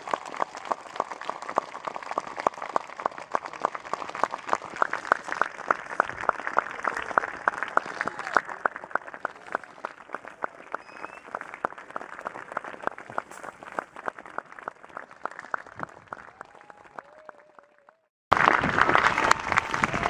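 Audience applauding, with one pair of hands close by clapping sharply and steadily above the crowd. The applause dies away about eighteen seconds in, then cuts back in louder.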